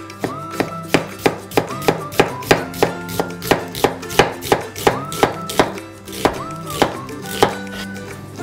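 Chef's knife slicing an onion thinly on a wooden cutting board, then a piece of ginger: a steady run of sharp cuts, about three a second, with a short pause near the end. Background music plays underneath.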